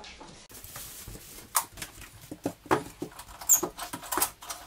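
Front-door lock and handle being worked: a run of irregular clicks, knocks and rattles, with a short high squeak about three and a half seconds in.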